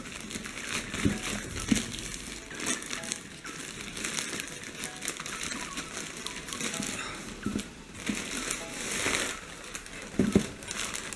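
Plastic courier mailer bag crinkling and rustling as it is torn open and a cardboard box is slid out of it. There is a louder burst of crinkling shortly before the end, then a thump.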